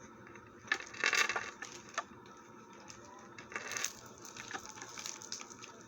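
Crinkling and light clicks from a faux-pearl and chain necklace and its packaging being handled, with two short crinkly stretches and a few sharp clicks.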